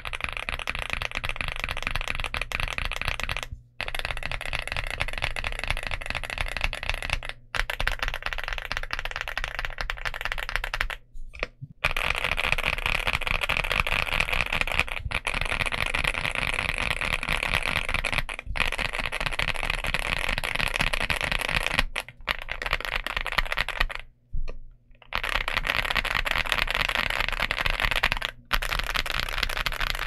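Continuous typing on a Leobog Hi98 aluminum 1800-layout mechanical keyboard with Leobog Barbie linear switches and PBT Cherry-profile keycaps: a dense, rapid run of key strokes, close-miked, broken by a few short pauses.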